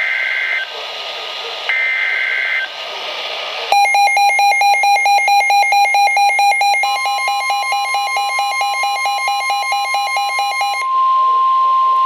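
Emergency Alert System header on a NOAA Weather Radio broadcast: two short buzzy digital data bursts, then a rapid pulsing electronic alarm beep, joined about halfway through by the steady single-pitch warning alarm tone, which carries on alone after the beeping stops near the end.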